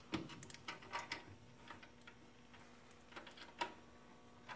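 Faint, scattered small metallic clicks of a nut and washer being fitted and threaded by hand onto the upper mounting bolt of a coil-over shock.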